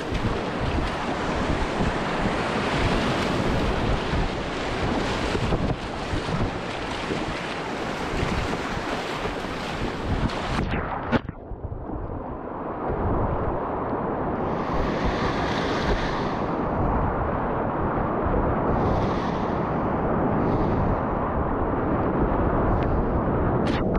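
Whitewater rapids rushing steadily, with wind buffeting the microphone. A little past the middle the hiss loses its top end and turns duller, with a few brief brighter splashes after that.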